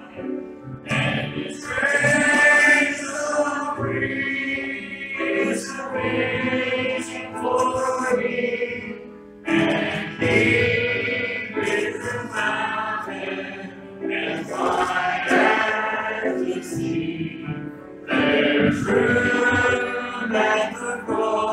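Church congregation singing a hymn together, led by a man's voice, phrase after phrase with short breaks between lines.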